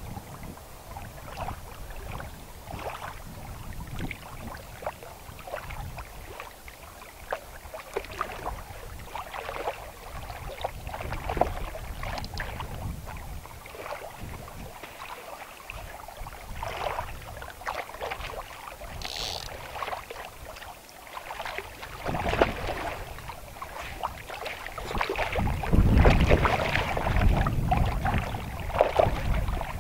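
Wind buffeting the microphone at the lake shore, growing much louder in the last few seconds, with irregular short splashes and clicks throughout as a hooked carp is fought and landed.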